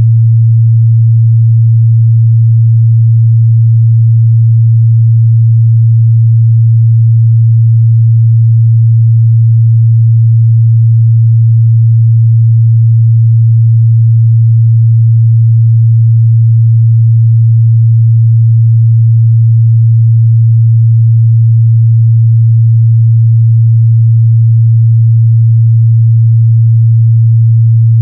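A continuous 114 Hz sine-wave test tone: a steady low hum at one pitch and a constant loud level.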